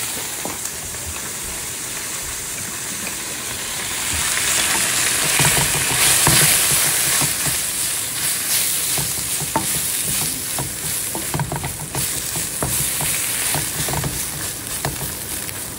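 Tofu puffs sizzling in oil in a hot wok, getting louder about four seconds in. From about five seconds on, a wooden spatula scrapes and knocks against the pan many times as they are stirred.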